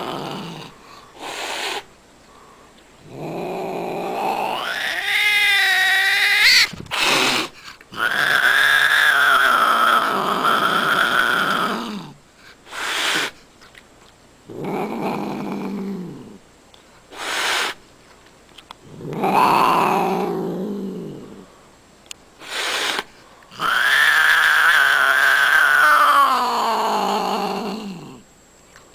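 White fold-eared cat yowling and growling in an angry threat display: five long drawn-out calls, some wavering and rising, others sliding down at the end, with short sharp bursts between them.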